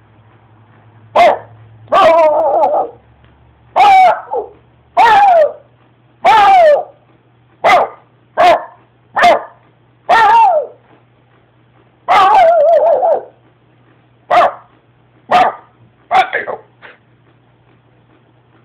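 A dog barking loudly over and over: short single barks mixed with longer, drawn-out calls that bend down in pitch.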